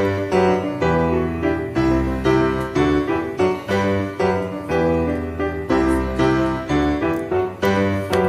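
Background music: a keyboard melody of quick, evenly paced notes over recurring bass notes.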